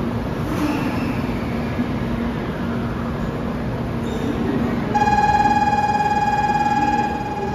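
Station platform departure bell: a loud, steady electronic ringing tone that starts about five seconds in and keeps on, signalling that the Shinkansen is about to leave. Beneath it, the steady hum of the bullet train standing at the platform.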